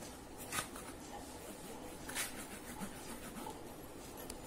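Faint handling of a glue stick on cardboard, with two short scratchy strokes, about half a second and about two seconds in.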